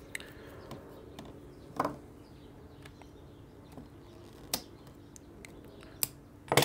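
A handful of separate sharp clicks as pliers grip and pry the stamped metal shield can off a Wi-Fi module on a circuit board; the loudest click comes near the end. A faint steady hum sits underneath.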